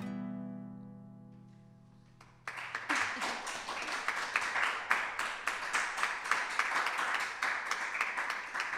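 A final guitar chord strummed and left to ring, fading away over about two and a half seconds; then an audience starts applauding and keeps clapping.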